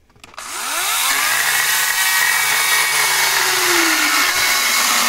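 Einhell GE-LC 36/35 Li battery-powered chainsaw starting up about half a second in, its motor spinning up with a rising whine and then running steadily at full speed as the chain cuts into a wooden board.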